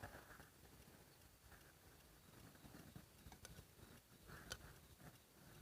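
Near silence: faint background with a few soft, brief clicks about halfway through.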